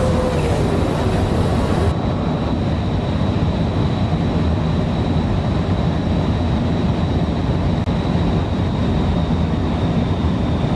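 Vehicle travelling at high speed: steady road and wind noise with a deep rumble and a thin, steady high whine. About two seconds in the hiss above it drops away.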